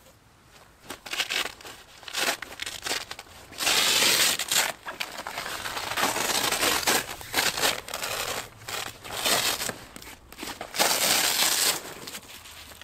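Stiff tent fabric of a Bereg UP-2 hot tent rustling and crinkling in irregular loud bursts as the tent is handled and folded down for packing.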